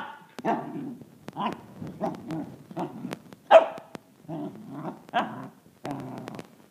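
A six-month-old Pembroke/Cardigan corgi cross puppy barks in a string of short, high barks with low growls in between. The loudest bark comes about three and a half seconds in. It is a young dog's bark-and-growl at an unfamiliar object, half threat and half play.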